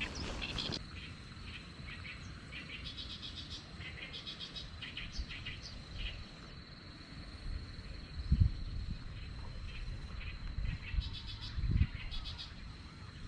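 Outdoor wildlife: birds chirping in short scattered bursts over a steady high insect trill, with two brief low thumps, about eight and twelve seconds in.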